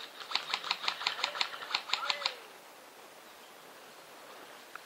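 Airsoft rifle firing a rapid string of about a dozen semi-automatic shots, with a brief pause partway through.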